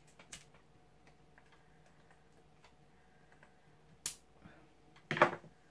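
Tobacco pipes being puffed in a quiet room: faint clicks and lip sounds on the pipe stems, a short soft hiss about four seconds in, and a louder breathy puff just before the end.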